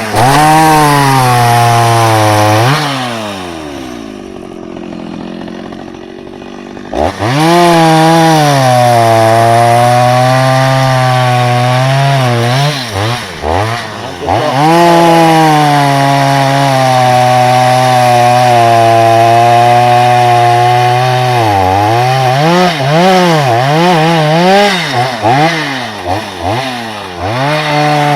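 Chainsaw engine running loud and cutting wood, dropping to a quieter idle about three seconds in, then back to full throttle with long steady cuts. Near the end it revs up and down in quick swings.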